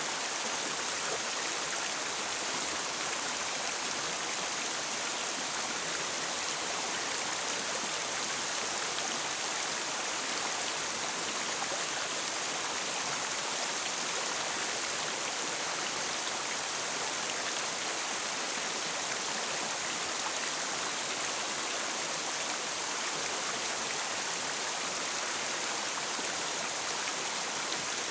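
River water flowing, a steady, even hiss with no breaks or separate splashes.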